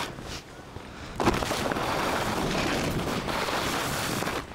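A quieter second, then a hard thump of skis landing on snow, followed by a steady rush of skis sliding over snow and wind buffeting the action camera's microphone.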